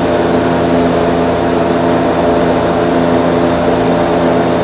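Steady mechanical hum with several constant pitches, from a running machine such as a ventilation fan or heater.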